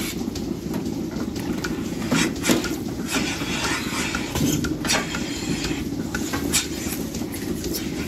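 Milking-parlour machinery running with a steady low hum, with sharp metallic clicks and clanks scattered through it as milking clusters are handled and put on the cows' teats.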